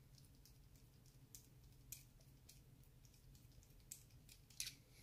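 Near silence with faint, scattered clicks and taps, about six of them, from small parts of an RC truck's plastic portal axle being handled. A faint low hum runs underneath.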